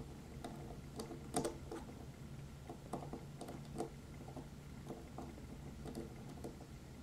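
Small scattered clicks and ticks of a tiny wrench working a wheel nut on a 1:18 scale model car, with fingers handling the model, over a low steady hum.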